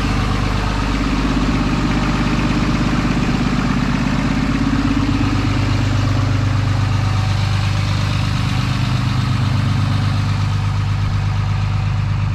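6.7-litre Cummins inline-six turbodiesel idling steadily after a cold start, an idle the owner is listening to for a possible misfire.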